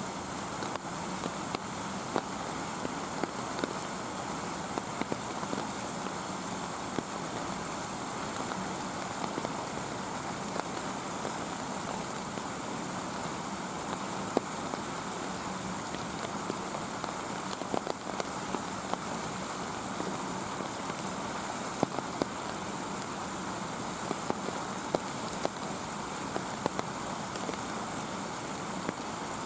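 Steady hiss of falling rain with scattered sharp ticks of drops striking surfaces.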